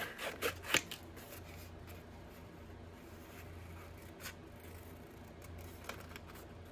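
Scissors snipping through paper, several quick cuts in the first second and a couple of fainter snips later, over a faint steady low hum.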